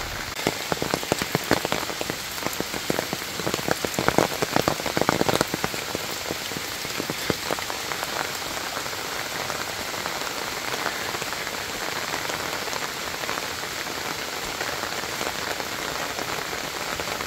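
Steady rain falling, with a dense patter of sharp, close drop taps during the first five seconds or so, then an even hiss.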